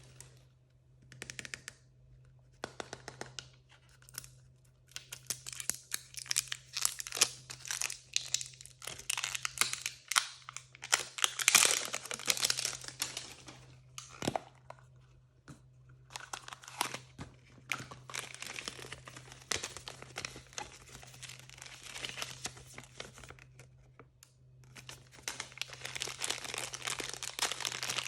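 Crinkly blind-bag packaging being torn open and crumpled by hand: irregular rustling and ripping in bursts with short pauses, loudest around the middle, over a faint steady hum.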